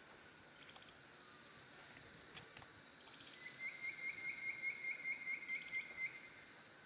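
Quiet outdoor ambience with a steady high insect whine. About halfway in, a rhythmic series of about a dozen short rising chirps, roughly four a second, runs for nearly three seconds.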